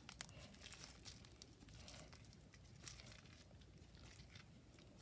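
Near silence: room tone with a few faint soft clicks and rustles from hands handling slime.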